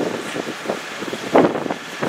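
Wind buffeting the microphone in irregular gusts, with the strongest gust about one and a half seconds in.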